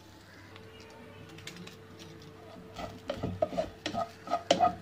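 Wooden spatula stirring grated coconut as it dry-roasts in a nonstick pot. It is quiet at first, then knocks and scrapes against the pot in quick succession through the second half.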